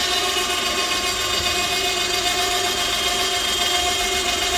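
Cordless power drill fitted to a small trailer-mounted crane, running at one steady speed to drive the hoist that lowers the load: a steady motor whine with several held tones.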